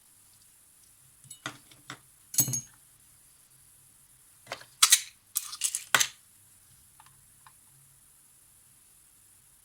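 Small hard objects clicking and clinking as they are handled: a few light clicks, a louder clink, then a quick run of sharp clinks about five seconds in.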